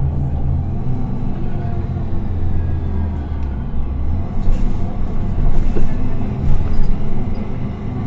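Diesel engine of a Higer KLQ6129GQ2 city bus running under way, heard from inside the passenger cabin as a steady low drone. The deepest part of the drone eases off about halfway through, and a few sharp clicks and rattles follow.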